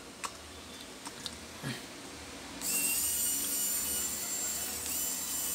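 A few light clicks, then a small electric precision screwdriver starts about two and a half seconds in and runs with a steady high-pitched whine as it turns the screws on a graphics card.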